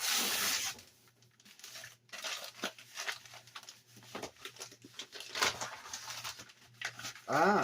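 A large mailing envelope torn open by hand: a loud rip at the start, then paper rustling and crinkling as the envelope is worked open and its contents are pulled out. A brief rising vocal sound comes near the end.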